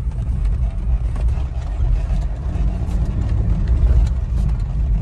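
BMW running with a steady low rumble of engine and road noise, and no knock from the steering rack, which has been rebuilt with tight-fitting caprolon bushings.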